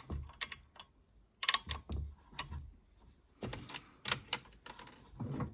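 Irregular small clicks, taps and a few dull knocks as the plastic and metal parts of a Makita DSS611 cordless circular saw are handled while it is being taken apart.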